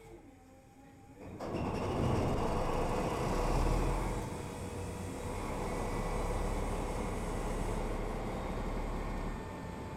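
MTU 12V 956 TB11 V12 diesel engine of a DB class 218 locomotive starting up: after a faint falling whine it fires about a second and a half in, runs up loudly for a few seconds, then settles to a steady idle.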